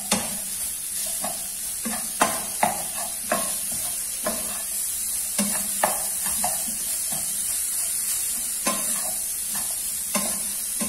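Broccoli and carrots sizzling in oil in a frying pan, with a steady high hiss, while a spatula stirs them and knocks and scrapes against the pan at irregular intervals.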